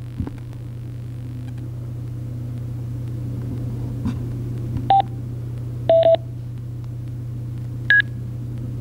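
Sena SMH10R motorcycle intercom headset beeping through its helmet speaker as its control is operated: a single beep about five seconds in, a quick double beep a second later, and a single higher beep near the end. A steady low hum runs underneath.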